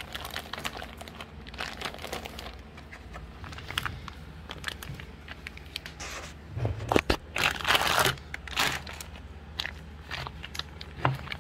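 Plastic bags holding pork belly in cure being squeezed and worked by hand, working the cure into the meat: irregular plastic crinkling and crackling, louder and busier from about six seconds in.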